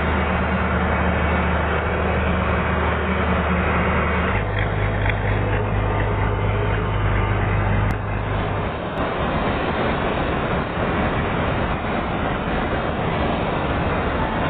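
Chardikala combine harvester running, a loud steady engine and machinery drone. The low hum changes pitch abruptly about four seconds in and again just before the middle.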